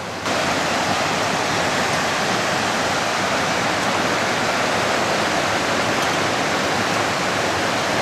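Steady rushing of a river flowing over rocks, an even hiss that begins abruptly a moment in and holds level throughout.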